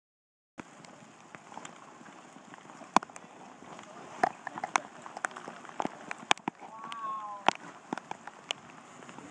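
Steady rain, with scattered sharp ticks of drops hitting close by, starting about half a second in. A brief voice sounds around seven seconds in.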